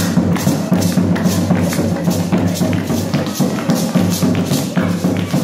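Lively dance music with a fast, even drum beat of sharp hits over a steady low bass.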